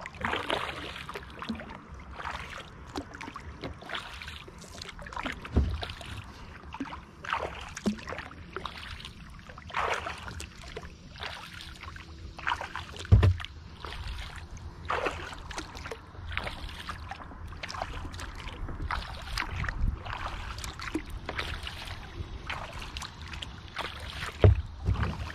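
Kayak paddle strokes in calm lake water beside a Wilderness Systems Tsunami 120 kayak: a splash and drip with each stroke, one every second or so, with a few dull low thumps.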